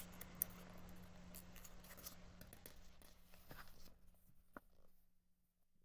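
Faint rustle of a paperback graphic novel's page being turned by hand, with a few small paper clicks over a low steady hum; the sound dies away near the end.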